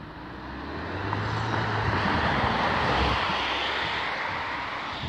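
A car driving past on the road: engine hum and tyre noise swelling to a peak about two to three seconds in, then fading away.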